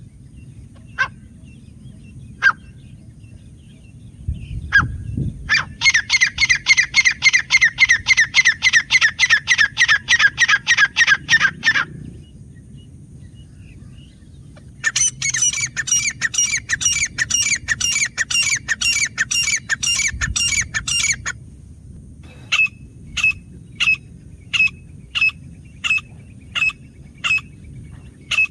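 Grey francolin calling: a few single sharp notes, then two long runs of fast repeated notes at about five a second, then spaced single notes at about one and a half a second.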